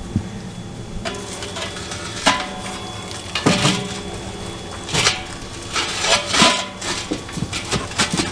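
A steel 100-pound propane tank being set down and shifted into place on a patio paver: a series of knocks and scrapes, some followed by brief metallic ringing from the hollow tank.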